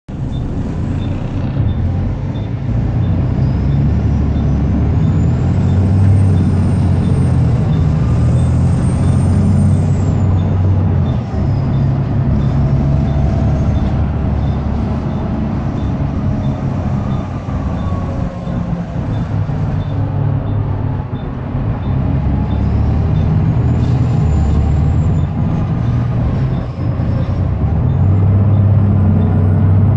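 Volvo B7 bus's six-cylinder diesel engine heard from inside the cabin, droning loudly under acceleration. A high whine climbs and falls away twice, and the drone dips briefly a few times as the gearbox changes up.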